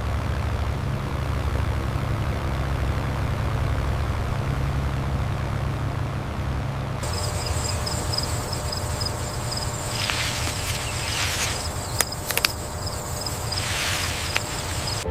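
A steady low engine rumble for the first seven seconds. Then a high, rapidly pulsing insect chirp and a thinner mid-pitched hum come in, with a couple of sharp clicks near the end.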